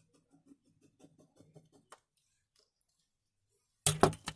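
Ballpoint pen drawing a diagonal line on an orange cotton square along a clear acrylic ruler: faint, quick scratching strokes for about two seconds. Near the end comes a brief, loud clatter of clicks and knocks as the ruler is lifted away and set down.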